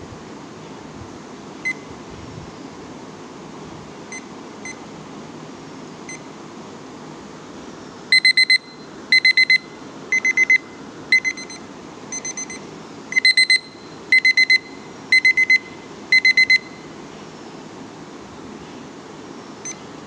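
Digital kitchen/study timer's alarm beeping: groups of about four quick high-pitched beeps, roughly one group a second, for about eight seconds before stopping. Before that come a few single short key beeps as its buttons are pressed.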